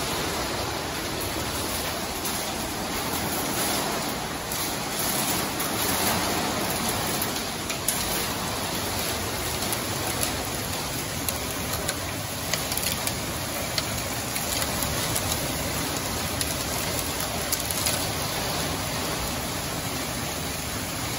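Heavy downpour: a steady rush of rain, with scattered sharp ticks of drops striking nearby surfaces.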